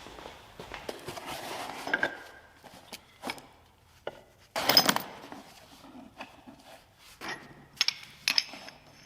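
Heavy metal parts of a homemade portable line boring machine being handled and set down: scattered clinks and knocks, with one loud half-second rattle about halfway through.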